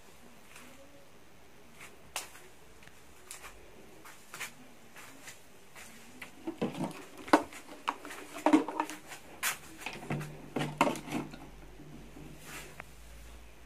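Scattered knocks and clicks of household items being handled on a shelf, sparse at first and coming thick and louder in the second half.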